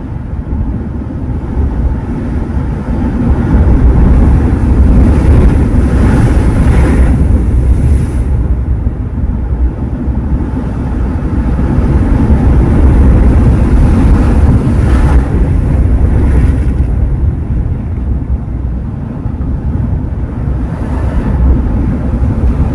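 Sea waves breaking and washing ashore in a steady rush of surf that swells louder twice, with wind rumbling on the microphone.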